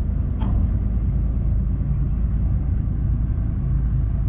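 Low, steady rumble of the diesel locomotives of an approaching freight train, still some distance off.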